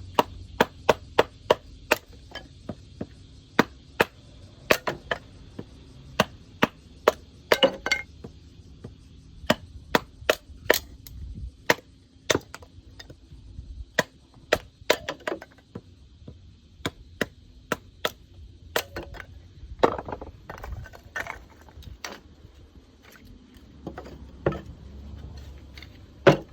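A wooden board being split on a chopping block: many sharp knocks of a blade driven into wood, at irregular intervals, often one or two a second, some in quick clusters.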